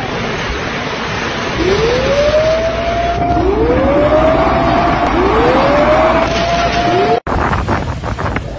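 Loud rushing of a torrent of floodwater and debris. Over it an alarm wails, rising in pitch and then holding, four times in a row. About seven seconds in it cuts off abruptly to the rushing of floodwater in another recording.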